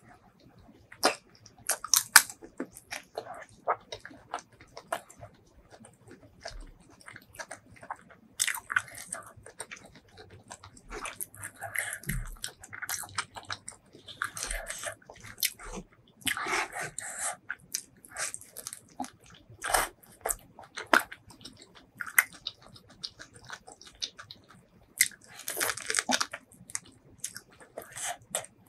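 Close-miked eating: biting and chewing spicy, sauce-coated enoki mushrooms and seafood, with irregular mouth smacks and crunches.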